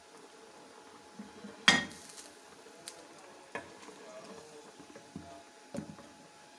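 Wooden spoon knocking against an aluminium pressure cooker, about five sharp knocks with the loudest about two seconds in, while marrow is knocked out of beef shank bones into the broth.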